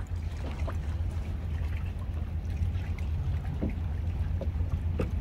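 Water lapping and trickling around a floating kayak, with small scattered splashes over a steady low rumble.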